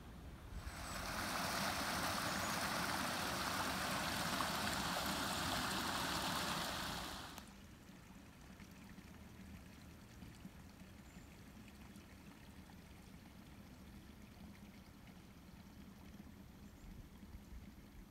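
Steady rush of flowing water for about seven seconds, cutting off abruptly, then faint outdoor quiet.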